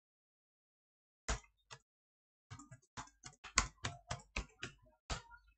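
Computer keyboard keys being typed: two lone key clicks, then a quick irregular run of about a dozen clicks at roughly four a second.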